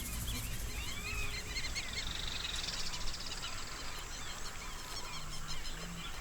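A flock of birds calling together: many short, overlapping chirps, with a buzzy trill about two and a half seconds in.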